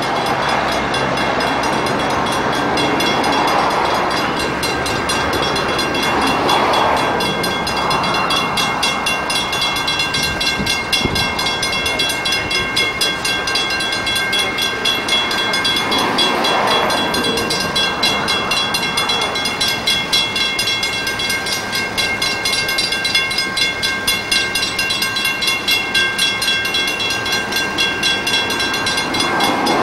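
NZR DA class diesel-electric locomotive, with its two-stroke EMD engine, running as it approaches hauling a passenger train, with a steady high whine over it. The engine and wheel noise takes on a regular pulsing in the second half.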